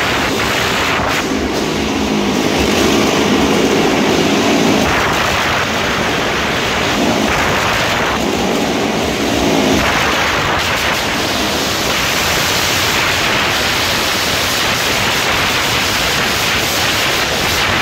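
Several motorcycles running hard around a wall-of-death drum, a loud, dense, distorted engine noise with no break. One engine's tone stands out for a few seconds about a second in and again near the middle.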